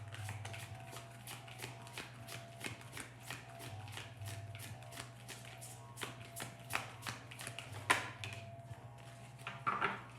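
A deck of oracle cards being shuffled by hand: a fast run of papery flicks for most of the time, then a few louder snaps near the end. Soft background music runs underneath.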